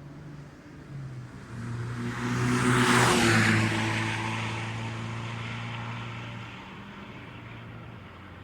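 Race car passing at speed under power: its engine grows to a peak about three seconds in, drops in pitch as it goes by, then fades away.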